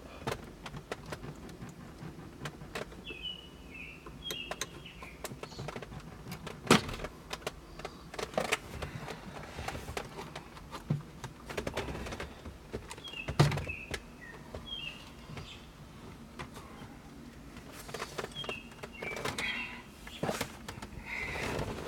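Plastic dashboard trim being pried loose by hand: a run of irregular clicks and knocks as its clips give way, with two sharp snaps about 7 and 13 seconds in. Birds chirp now and then in the background.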